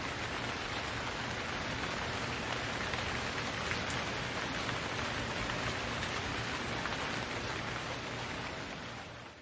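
Steady rain falling on a surface, an even hiss of many drops with a few distinct drop ticks, fading out near the end.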